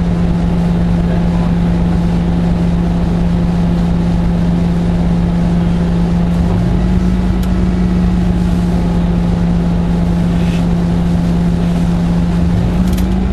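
Orion VII (07.501) diesel-electric hybrid city bus running with a loud, steady drone that holds one low pitch, with fainter steady hums above it.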